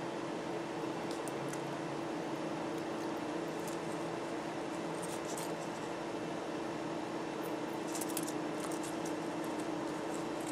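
Small metal jewellery pieces clinking faintly as fingers sort through them in a little case, in scattered clusters about halfway through and again near the end, over a steady room hum.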